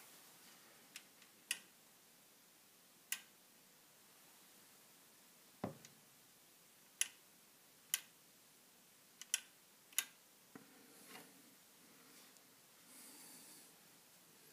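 A series of sharp, irregular clicks from a normally-closed microswitch on a kitchen cabinet door being pressed and released by hand, switching the cabinet's 12-volt LED strip light. One duller knock comes about halfway through, and the clicking stops after about ten seconds.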